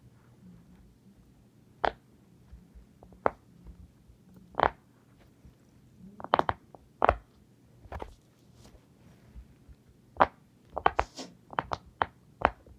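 Silicone pop-it fidget toy bubbles being pressed, making a series of short pops at irregular intervals. Some pops come singly, others in quick runs of two or three, more of them near the end.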